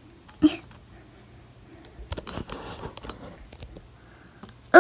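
Faint clicks and taps of small plastic Littlest Pet Shop figures and accessories being handled and set down, with one sharper, louder sound about half a second in.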